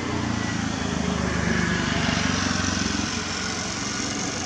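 A motor engine running steadily, swelling to its loudest about two seconds in and then easing off.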